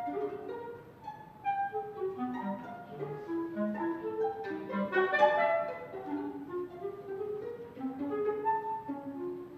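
Clarinet, violin and cello trio playing contemporary chamber music: many short, separate notes scattered across high and low pitches, growing to a dense, loud cluster about five seconds in before thinning out again.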